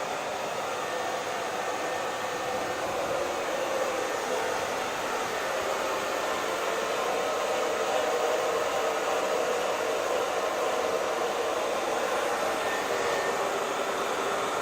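Hair dryer running continuously: a steady blowing whoosh of the fan and air, strongest in the middle range, with no changes in speed.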